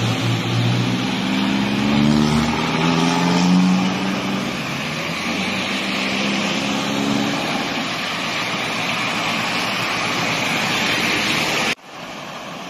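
Cars driving through deep floodwater: engines humming and rising and falling in pitch as they pass, over a steady hiss of tyres pushing through and spraying water. The sound cuts abruptly near the end to a quieter steady rush.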